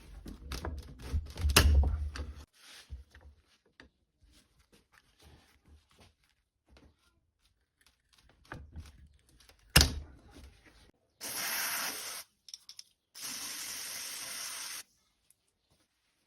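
Clattering knocks of metal vise parts being handled, a single sharp knock just under ten seconds in, then two steady hissing sprays, the first about a second long and the second about a second and a half.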